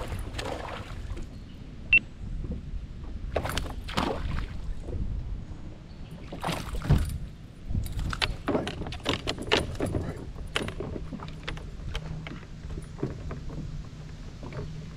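A bass being fought and landed from a plastic fishing kayak: a run of sharp clicks, knocks and rattles from rod, reel and tackle against the hull, with one loud knock about seven seconds in and a dense cluster of clicks a second later as the fish comes to the boat.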